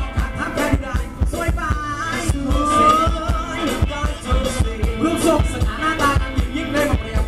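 Live band playing Thai ramwong dance music over a loud PA system: a heavy, steady drum beat under a sung melody.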